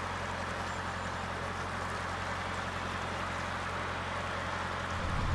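Diesel engine running steadily with a low hum, getting louder near the end.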